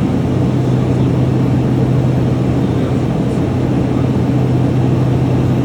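Piper Cheyenne twin turboprop in flight, heard inside the cockpit: a steady drone of the Pratt & Whitney PT6A engines and propellers, with a strong, unchanging low hum.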